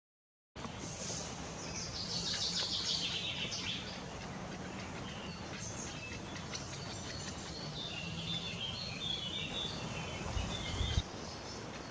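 Middle spotted woodpecker at its nest, high-pitched rapid chattering for a few seconds, then scattered shorter calls. A brief low thud near the end.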